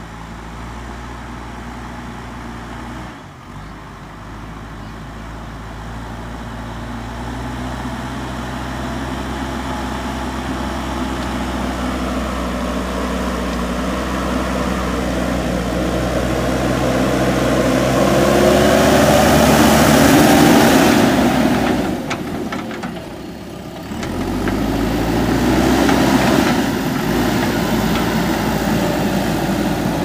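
Diesel engine of a JCB 3DX backhoe loader running under load as it pushes soil with its front bucket. It grows louder toward the middle, dips briefly about two-thirds through, then comes back up.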